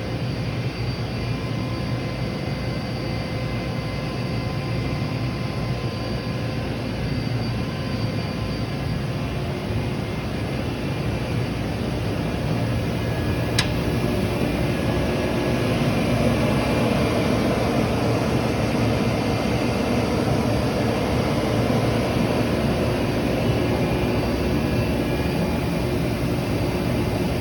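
Union BFP130 CNC floor-type horizontal boring mill running under power: a steady machine hum with faint whining tones that grows louder about twelve seconds in. There is a single sharp click near the middle.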